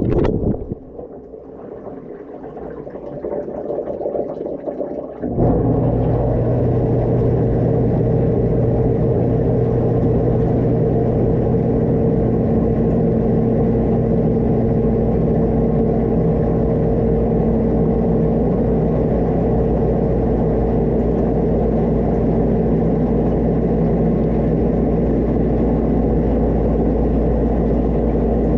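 Dishwasher heard from inside the tub: the spraying stops just after the start and a few quieter seconds follow. About five seconds in, the wash pump motor starts with a steady hum under water spraying that keeps going.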